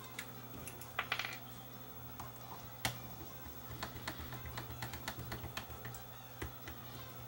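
Light clicks and taps of plastic and metal parts as a cassette deck's tape mechanism is handled by hand. There is a sharper click about a second in and another near three seconds, over a steady low hum.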